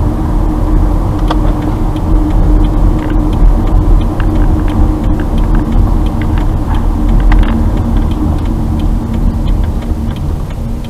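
Car cabin noise while driving slowly: a steady low rumble of engine and tyres with a faint hum, and scattered light ticks. The noise eases off near the end as the car slows.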